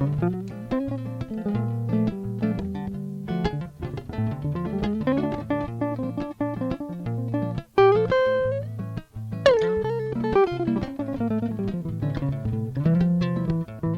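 Höfner Wandergitarre with a single-coil pickup, played as a picked melody of single notes and chords. Several notes slide or bend in pitch, among them a long falling slide past the middle.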